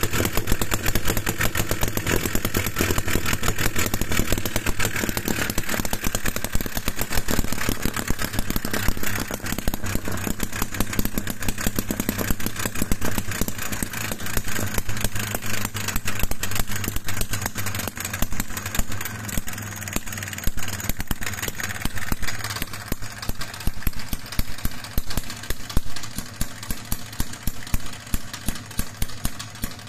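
Small homemade single-cylinder two-stroke model engine of about 12 cm³ running, with a rapid, even firing beat. In the last few seconds the beat turns more uneven.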